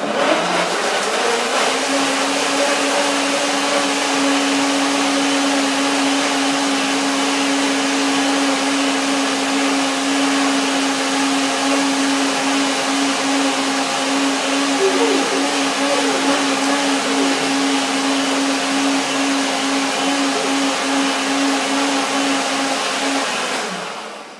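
Countertop blender running, blending a watery fruit smoothie of persimmon, banana and dates. The motor starts abruptly and its hum rises in pitch over the first second, runs steadily and loudly, then winds down and stops near the end.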